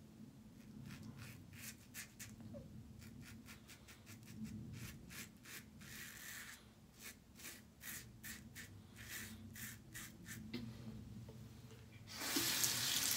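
Blackland Sabre razor blade scraping through lather and stubble in a quick series of short rasping strokes, against the grain. About a second before the end a water tap comes on and runs with a steady rush.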